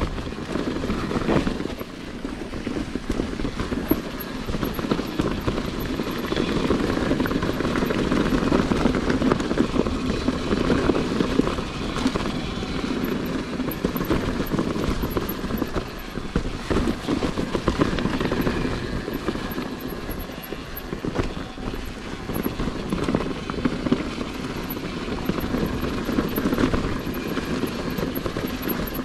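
Mountain bike being ridden over a rough, stony trail: a continuous rumble of tyres on stones and gravel, with a dense rattle of many small knocks from the bike.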